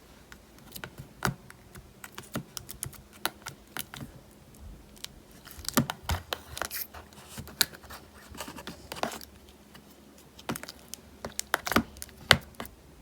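Gold-glitter marbled slime being played with by hand, giving irregular sticky clicks and pops, with a few denser crackly stretches.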